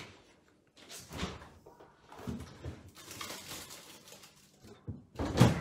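Kitchen handling sounds: a few light knocks, a stretch of rustling, then a louder thump near the end.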